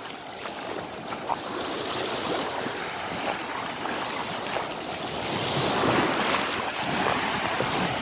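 Small Black Sea waves breaking and washing up on a sandy beach: a steady rushing surf that swells a little around the middle.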